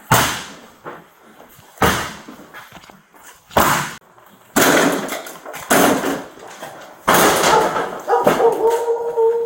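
A door being forced in with heavy slamming blows: three sharp impacts about two seconds apart, then longer crashing bursts, with a steady tone held near the end.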